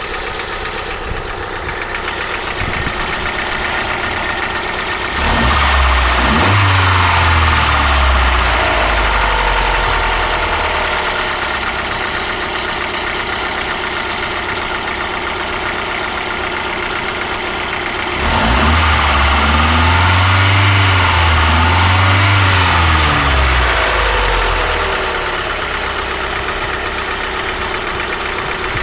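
Mazda 626 GD engine, fully warmed up, idling with a knock that only appears once it is warm; the owner does not know its cause. The engine is revved up and back down about a fifth of the way in, then blipped twice more past the middle before settling back to idle.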